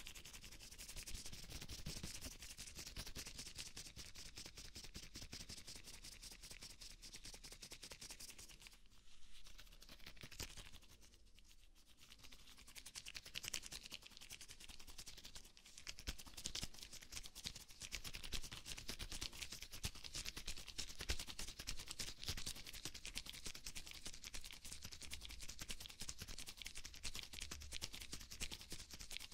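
Rubber gloves rubbing and crinkling close to a binaural microphone: a dense, fast crackle that dips quieter about a third of the way through.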